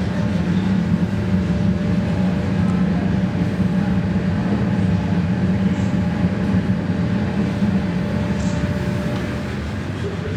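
Steady, loud low-pitched mechanical hum with a faint steady whine above it.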